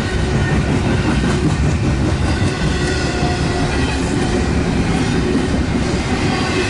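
CSX intermodal and autorack freight cars rolling past close by: a steady, loud rumble and clatter of steel wheels on the rails.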